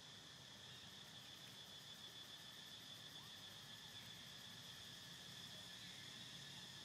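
Faint, steady, high-pitched insect chorus with no breaks.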